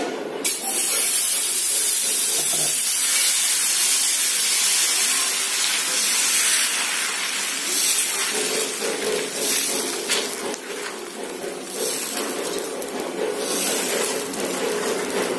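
Dosa batter sizzling as it hits a hot dosa griddle, a loud even hiss that starts about half a second in and eases off in the second half, with a few short scrapes as the ladle spreads the batter.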